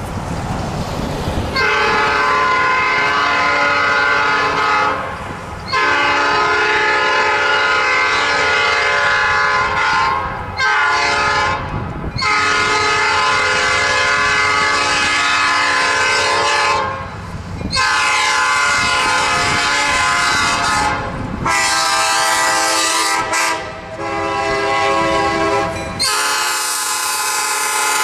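Diesel locomotive air horn on the lead EMD E8A, blown for a grade crossing as the train approaches. It sounds long, long, short, long, then keeps on in further long blasts. The horn's chord changes twice near the end.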